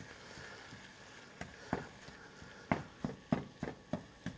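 Black spatula chopping and knocking against a nonstick frying pan as ground beef is broken up: two separate taps, then a quick run of about eight knocks, roughly three a second.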